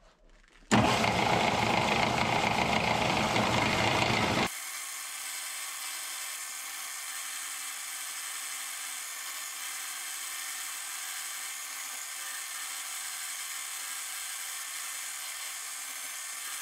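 Homemade belt-driven buffing machine built on an old lathe, running as a bronze sword blade is polished against its spinning buffing wheel. Loud and dense for the first few seconds, then it cuts suddenly to a steadier, quieter running sound with a few steady tones.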